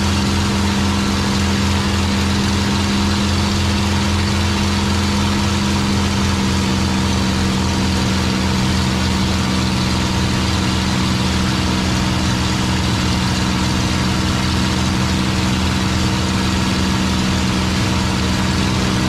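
Packard Merlin V-12 engine of a P-51 Mustang running steadily in cruising flight, heard from inside the cockpit as a loud, even drone with a rushing noise over it.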